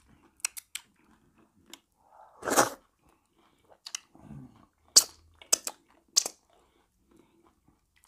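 Close-up eating sounds from seafood okra soup and fufu: chewing broken by about ten sharp crunches and smacks, the loudest about two and a half and five seconds in.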